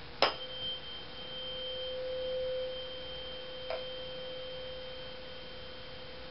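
A tuning fork struck once with a sharp click, then ringing with a steady pure tone and a faint high overtone. The tone swells for a while as the fork is held in a small plastic box with the lid closing around it, the box amplifying it by resonance. A light tap comes later on.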